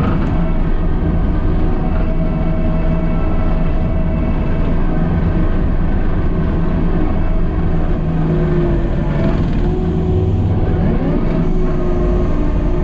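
Diesel engine of heavy earthmoving equipment running loud and steady, with small shifts in pitch partway through.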